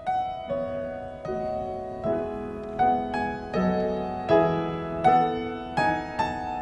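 Petrof grand piano playing slow, legato chords on a steady pulse, a new note or chord struck about every three-quarters of a second and left to ring.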